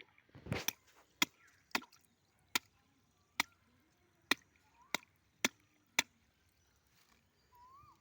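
A series of about ten sharp knocks or strikes at uneven intervals of roughly half a second to a second, with a faint short chirp near the end.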